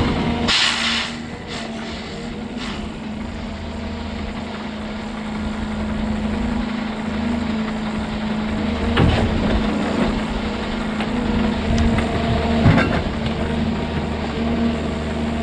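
Heavy diesel construction machine, such as an excavator, running steadily, with a couple of sharp knocks about nine and twelve and a half seconds in.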